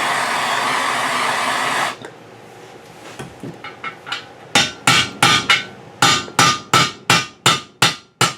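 A torch hisses steadily and is shut off about two seconds in. Then a hammer taps lightly on metal and builds to steady ringing blows, about three a second, driving a heated collar and bearing into the Honda ATC250R's swingarm.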